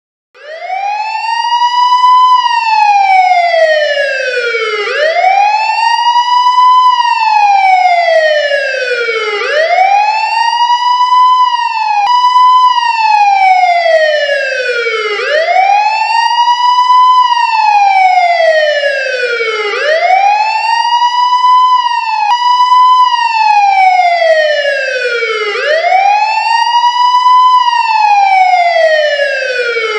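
Police car siren in a wail pattern: each cycle sweeps quickly up in pitch and then falls slowly, repeating about every four and a half seconds. It starts abruptly and is loud.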